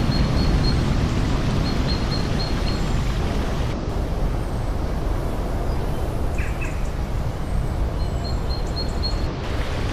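Steady rush of river water, with short bird chirps in quick runs over it near the start and again near the end. The water sound changes slightly about four seconds in.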